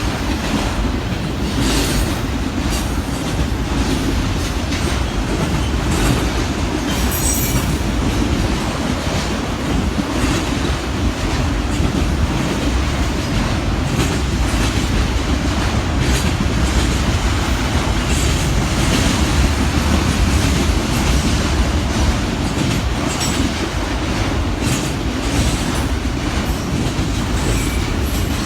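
Freight train cars rolling past, a steady loud rumble of steel wheels on rail with irregular clicks from the joints. There are a few brief high wheel squeals, one about seven seconds in and another near the end.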